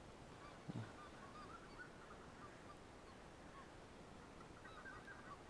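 Faint flock of wild geese calling in the distance, many short overlapping honks that grow busier near the end. A brief low thump comes about three-quarters of a second in.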